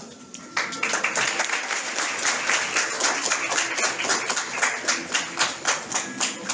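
A small group of people applauding, the clapping starting about half a second in.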